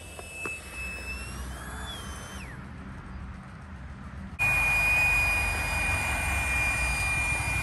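Electric air pump inflating an inflatable swimming pool. It switches on suddenly a little over halfway through and runs steadily, loud, with a high-pitched whine over the rush of air. Before it, a faint thin tone wavers up and down in pitch and fades out.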